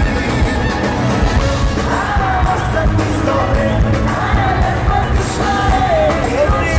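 Live pop band playing: drums, bass and guitar, with a lead vocal melody coming in about two seconds in, recorded from the audience in an arena.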